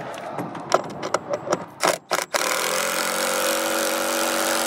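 A few sharp knocks and clicks, then a cordless drill starts about two and a half seconds in and runs steadily, driving a screw to fasten a wooden bait hive to a wooden sign board.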